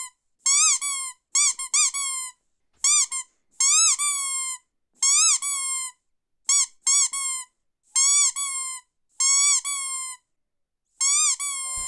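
Rubber squeaky dog toy squeezed again and again: short high squeaks that rise and fall in pitch, coming in ones, twos and threes with brief silences between.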